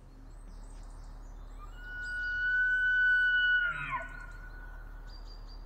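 A single long, high animal call: it holds one steady pitch for about two seconds, then breaks and slides down. It sits over a soft outdoor background with faint high chirps.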